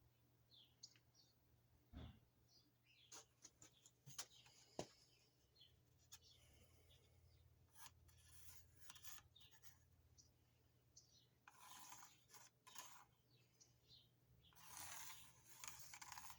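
Faint rubbing and scraping with scattered clicks and taps; two longer scraping stretches, each about a second and a half, come near the middle and near the end.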